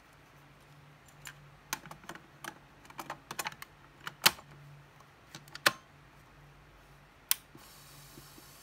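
A cassette being loaded into a portable cassette player: a run of plastic clicks and clacks as the tape goes in and the lid snaps shut, the loudest about four, five and a half and seven seconds in. A steady hiss then comes up as the player starts.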